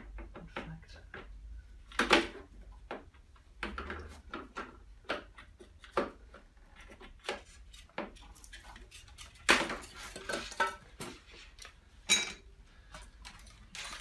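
Irregular clicks, clacks and knocks of plastic and metal washing-machine parts being handled and pried at as a clipped-in float switch is worked loose, with a few louder knocks along the way.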